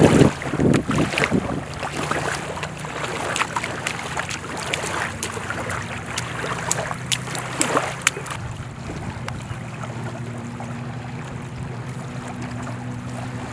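Wind buffeting the microphone at a lake beach, loudest in gusts during the first two seconds, with scattered small clicks or splashes. A steady low hum runs underneath and stands out more in the second half as the wind dies down.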